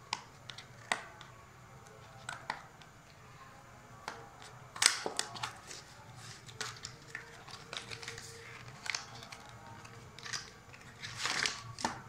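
Paperboard box and clear plastic blister tray of in-ear earphones being opened and handled by hand: scattered clicks, scrapes and rustling, the loudest about five seconds in and a cluster of rustles near the end.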